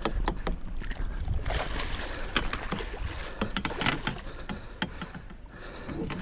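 A hooked musky thrashing at the surface beside the boat, a run of irregular splashes and water slaps against the hull.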